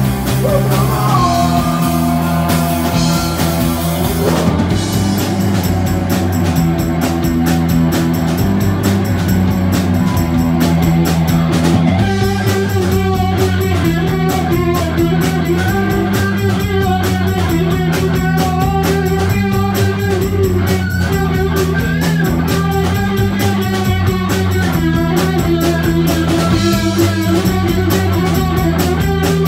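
Live rock band playing: distorted electric guitar, bass guitar and drum kit in a steady repeating riff. About twelve seconds in, a busier higher guitar line comes in over it.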